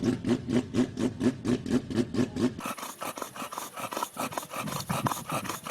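Rotary engine idling with its typical choppy brap, about five pulses a second, which stops about two and a half seconds in. A quieter raspy scratching with scattered ticks follows.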